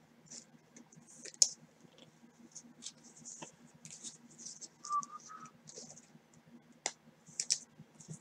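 Trading cards being slid into soft plastic penny sleeves: faint crinkling and scratching of plastic and card with scattered small clicks, a sharper click about a second and a half in, and two short squeaks about five seconds in.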